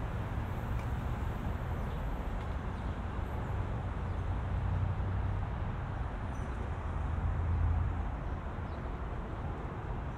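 Steady low rumble of city traffic, swelling about halfway through and again near the end as vehicles pass.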